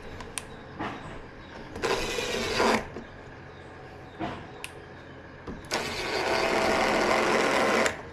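Electric screwdriver driving screws in two runs: a short burst about two seconds in and a longer one of about two seconds near the end, with small clicks and knocks of handling between.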